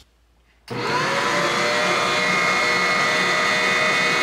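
Electric stand mixer switched on about a second in: its motor starts suddenly and runs at a steady pitch with a whine, mixing whole wheat flour into the wet dough ingredients.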